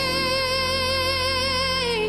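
Ballad music with a woman singing: she holds one long note with vibrato over steady backing, and the note ends near the end.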